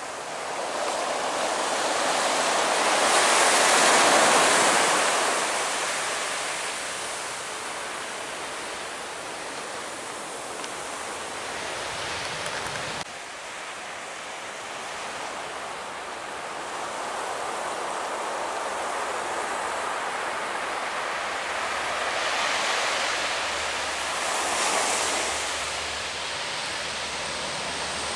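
Boeing 737 airliner's jet engines passing overhead on final approach, a rushing noise that swells to its loudest about four seconds in and then fades. After an abrupt change about 13 seconds in, the steadier noise of military turboprop aircraft running on the airfield takes over and swells again near the end.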